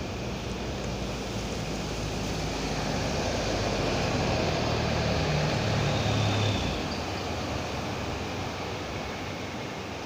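A motor vehicle going past on the road: a low engine hum grows louder over the first six seconds or so, then drops away sharply, over a steady rush of wind and distant surf.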